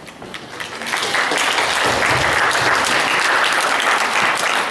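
Audience applauding in a large hall, swelling up over the first second and then holding steady.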